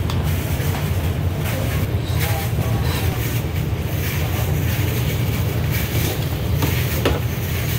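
Steady low rumble of a busy restaurant kitchen's background noise, with a light click near the end.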